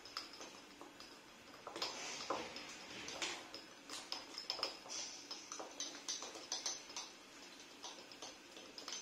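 Felt-tip markers stirring fine salt in small jars, with quick, irregular clicks and scratches of the marker tips against the salt grains and the containers. The stirring is working the marker ink into the salt to colour it.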